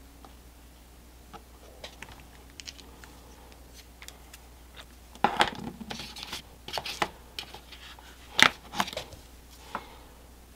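Small metal tubes of watercolour paint being handled and taken from their plastic set box: scattered light clicks and rattles, with louder clusters of handling noise about five seconds and eight seconds in.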